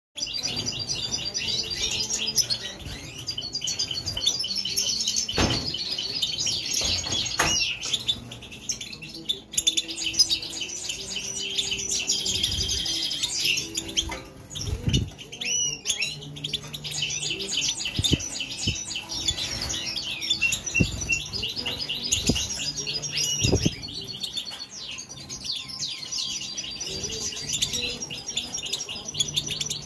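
Caged European goldfinches twittering and singing, a dense run of fast high chirps and trills, with a few brief low thumps.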